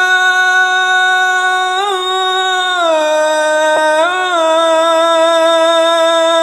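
A single voice chanting Arabic religious phrases in long held notes, with short ornamented turns about two and four seconds in and a step down in pitch near the middle, in the style of an Islamic call to prayer.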